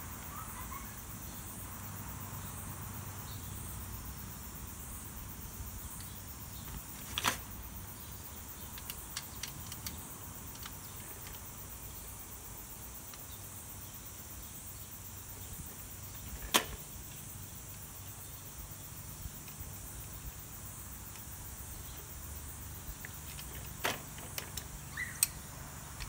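A steel-frame folding bike being folded: a handful of short, sharp clicks and knocks spread out as the frame hinge's quick release and locking pin are worked, the loudest about halfway through, over a steady low hum.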